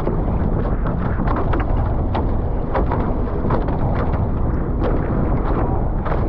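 Heavy wind noise buffeting the microphone on a Nacra 15 catamaran under sail, over water rushing past the hulls, with frequent short splashes.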